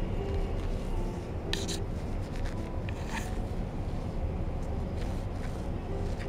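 Steady low room rumble, with two brief soft rustling scrapes about one and a half and three seconds in.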